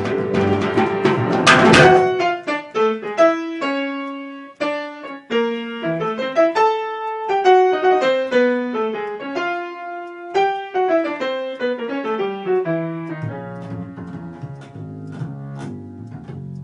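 Piano playing over a band: the full group with drums and cymbals for the first couple of seconds, then the piano carries a melody of separate notes on its own, moving into lower chords near the end.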